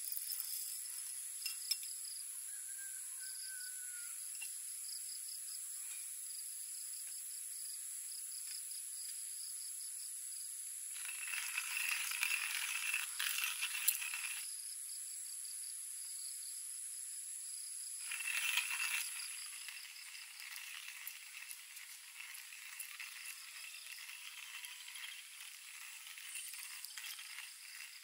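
Coffee beans rattling in a hand coffee grinder in two bursts of a few seconds each, the first longer, then fainter scratchy grinder noise. Insects trill steadily throughout.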